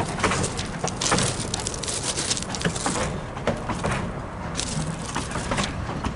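Footsteps crunching on gravel track ballast, an irregular run of sharp crunches, over a low rumble from the passenger cars rolling away on the narrow-gauge track.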